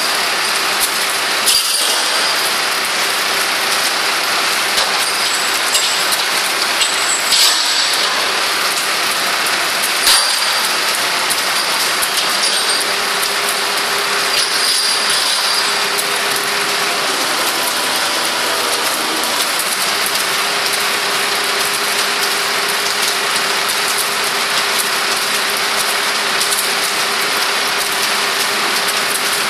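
Machinery engine running steadily with a constant whine, which drops in pitch for a few seconds past the middle, and a few sharp metallic clicks.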